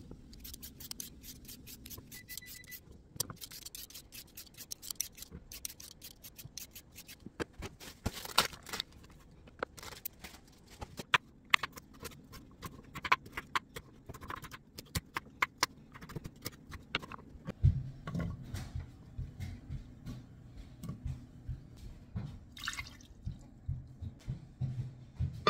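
Kitchen food-preparation sounds: a rapid, irregular run of short clicks and scrapes of utensils and vegetables being handled on the counter. A low rumble joins about two-thirds of the way through.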